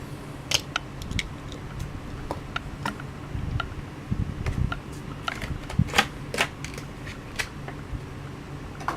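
Irregular sharp clicks and crackles of a diecast toy car's plastic blister pack and card being handled and opened, the loudest about six seconds in, over a steady low hum.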